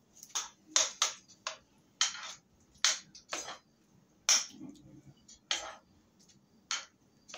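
A metal spoon scraping and knocking against a skillet as thick, cheesy goulash is stirred: about ten short, irregularly spaced scrapes.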